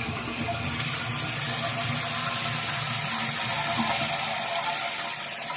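Toilet flush running on: a steady rush of water as the bowl clears and the tank refills.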